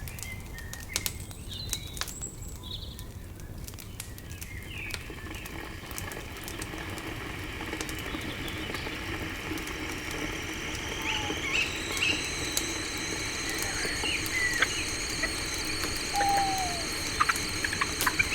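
Campfire crackling with scattered sharp pops and clicks, a few bird chirps, and a steady high insect trill fading in after a few seconds and growing louder.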